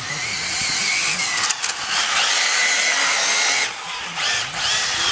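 ARRMA Felony RC car with a big pinion gear, its brushless electric motor whining under throttle while the tyres slide on the asphalt in a drift. The whine rises and falls in pitch and cuts out twice about four seconds in as the throttle is let off.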